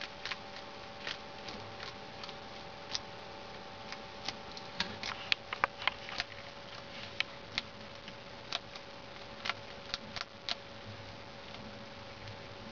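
Bearded dragon chewing its food: irregular sharp crunchy clicks, coming thickest in the middle and thinning out near the end, over a steady faint hum.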